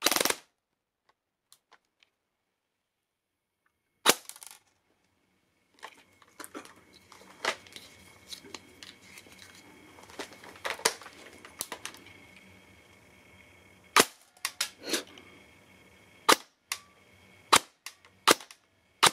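Battery-powered airsoft electric gun firing single shots through a chronograph, each a sharp crack: one at the start, one about 4 seconds in, then a run of shots coming faster toward the end. In between, softer rattling and clicking of handling.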